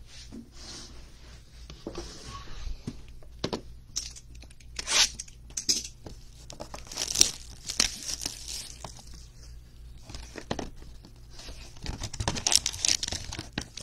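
Plastic shrink-wrap being torn and crinkled off a sealed cardboard trading-card box, then the box handled and opened. It comes as irregular scratchy rustles and rips, loudest around the middle and near the end.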